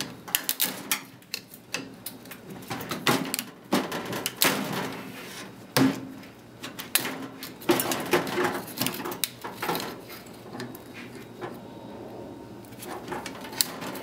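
Irregular clicks, knocks and plastic-and-metal clatter of pliers gripping and twisting a microwave's plastic blower fan and its motor clamps. The sounds are dense for about ten seconds, then thin out.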